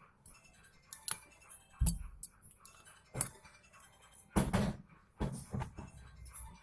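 Scattered sharp clicks and clinks of small tools and phone parts being handled during a smartphone teardown, with a few heavier thumps near the middle.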